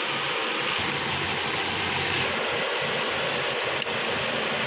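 Hyundai i10's four-cylinder Kappa petrol engine running at a steady idle, heard close up in the open engine bay as a continuous hum under a rushing hiss, with its new spark plugs fitted.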